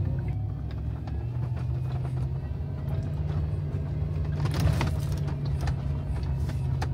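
2002 Toyota Tundra pickup's engine running steadily at low revs in four-wheel-drive low range as the truck crawls over rock, with a few short clicks and rattles.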